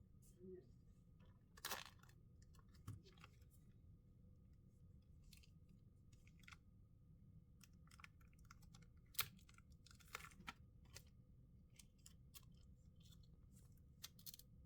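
Faint, scattered sharp clicks and light scrapes of small tools and phone parts being handled on a work surface, the loudest about nine seconds in, over a low steady hum.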